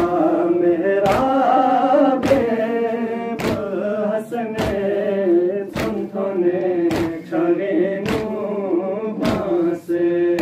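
A group of men chanting a noha, a Shia mourning lament, in unison behind the reciters. Sharp, evenly spaced slaps about once a second keep the beat, typical of matam (chest-beating).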